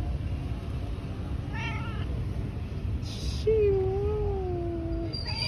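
A cat meowing: a short meow about one and a half seconds in, then a long, drawn-out meow that slides slowly down in pitch.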